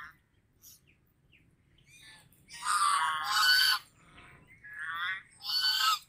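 Domestic geese honking: quiet for about the first two seconds, then one long, loud honk around the middle, followed by two shorter honks near the end.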